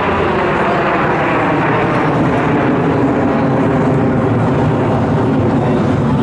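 A formation of F-16 fighter jets flying overhead. Their jet engines make a loud, steady rumble and roar that does not let up.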